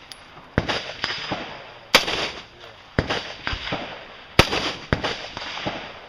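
Four single rifle shots from an AR-15-style rifle, about one to one and a half seconds apart. Each is a sharp crack followed by a short ringing tail.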